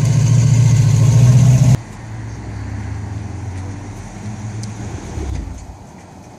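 Ferrari F12 Berlinetta's V12 idling loudly through its quad exhaust with a steady deep note, then, after an abrupt drop about two seconds in, idling more quietly and fading near the end.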